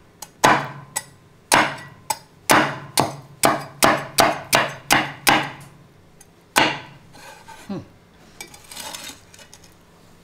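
About fifteen sharp knocks on a hard surface, each with a short ring, coming faster in the middle at two to three a second, the last one a little after six and a half seconds.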